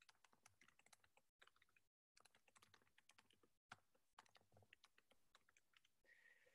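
Faint, irregular tapping of keys on a computer keyboard: someone typing, with the sound cutting out briefly a few times.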